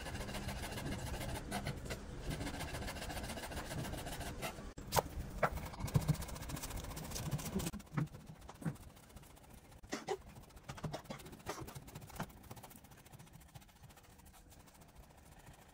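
Chef's knife chopping on a bamboo cutting board. First comes fast, dense chopping through fresh herbs, then separate knife strikes on the board as spring onions are sliced, growing sparser and quieter in the second half.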